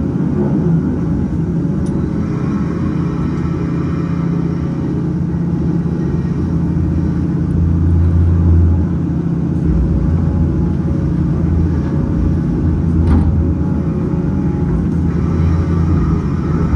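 Cat 568 log loader's diesel engine running steadily under hydraulic load while its grapple swings and sets pulp logs onto a log truck, with a sharp knock of logs landing late on.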